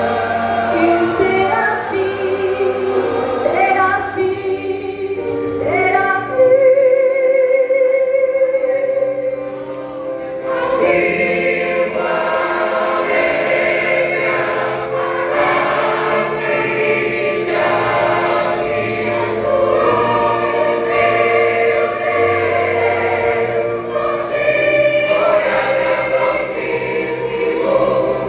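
Vocal group singing a gospel song in several voice parts over a steady bass line. About six seconds in the bass drops away and one voice holds a long note, then the full group and bass come back in after about ten seconds.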